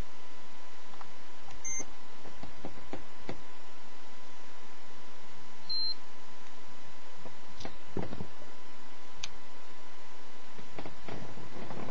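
Two short, high, flat beeps, about two seconds and six seconds in, over a steady faint tone, hiss and scattered light clicks.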